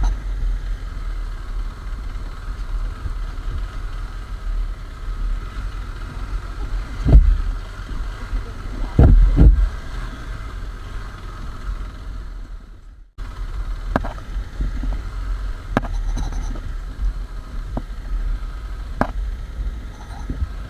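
KTM 390 Adventure's single-cylinder engine running steadily while riding a dirt trail, under a heavy low rumble of wind on the microphone. A few heavy thumps come about seven and nine seconds in, and the sound cuts out for a moment about thirteen seconds in.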